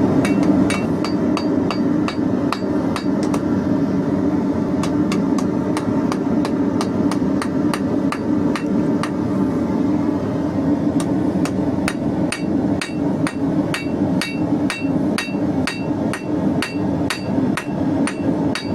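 Hand hammer striking a hot 16mm square steel bar on an anvil, an even run of blows at about two a second, each leaving a short metallic ring.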